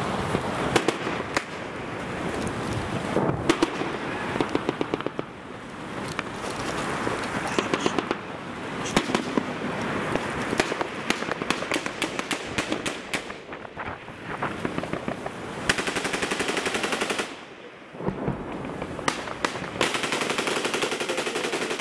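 Real firearms, not airsoft guns, firing in a combat firefight: long bursts of rapid automatic fire with single shots in between.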